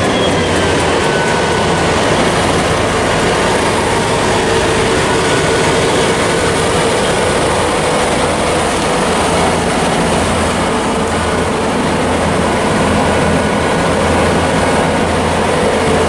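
Heavy diesel farm machinery running steadily and loud during maize silage harvesting. A constant low engine drone sits under a held mid-pitched whine, with no let-up or change.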